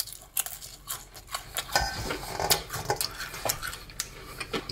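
Crunching and chewing of a freshly fried potato chip, a dense run of irregular crisp cracks.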